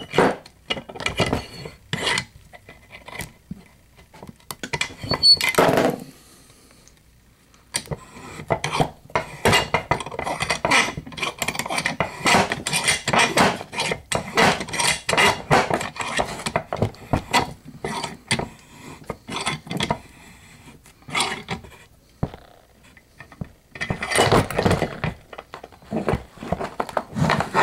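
Padlock and its small metal parts being handled and put back together by hand: a long run of irregular metal clicks, clinks and rattles, broken by a quiet pause of about two seconds a quarter of the way in.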